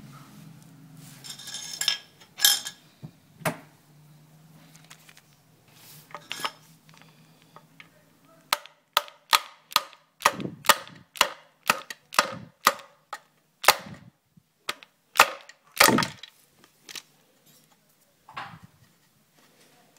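Hammer tapping a screwdriver against the plastic knockout plug inside a Waste King garbage disposal's dishwasher inlet, to break the plug out. There are a few sharp knocks at first, then a steady run of about two knocks a second for several seconds.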